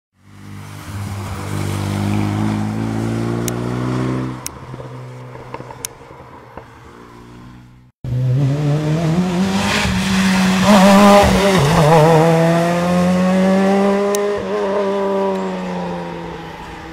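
Rally car engines at full throttle on a special stage, in two passes joined by an abrupt cut about eight seconds in. In each the engine note climbs and drops with the gear changes; in the second it wavers briefly before climbing again and fading as the car goes away.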